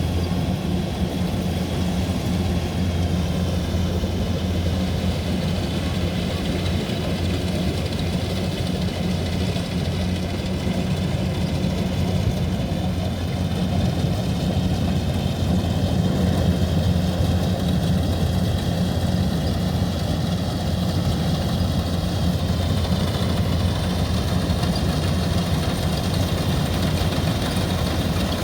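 Rice combine harvester's engine running steadily with a low hum, over faint higher whining tones that drift slowly in pitch.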